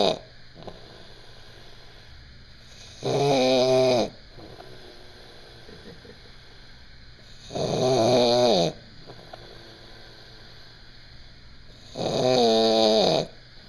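Loud snoring from a sleeper: three snores about four seconds apart, each about a second long and dropping in pitch at its end, with the tail of another snore at the very start.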